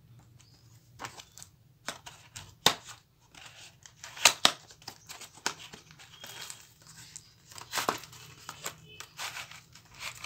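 A paperboard box of oil pastels being handled and slid open: its tray scrapes out of the sleeve, with irregular clicks, rustles and the crinkle of plastic wrap.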